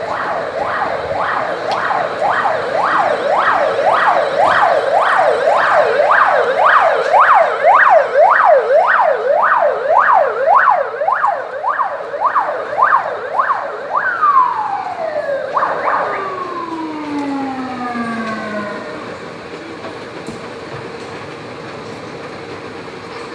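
Emergency vehicle siren on a rapid yelp, its pitch sweeping up and down about twice a second. Roughly two-thirds of the way through it stops cycling and winds down in long falling glides.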